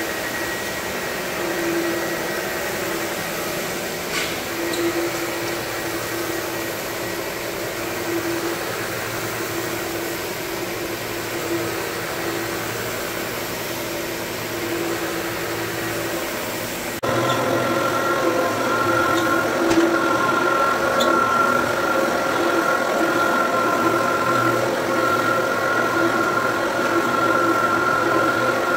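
Electric brush floor scrubber running steadily with a held hum as it scrubs a wet hardwood floor to strip polish residue. About 17 s in the sound switches abruptly to a louder machine with a higher steady whine, a rotary floor buffer running over the floor.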